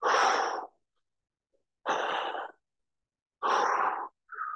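A man's forceful exhaled breaths, three hard puffs about every one and three-quarter seconds, in rhythm with reverse lunge reps during a high-intensity interval set.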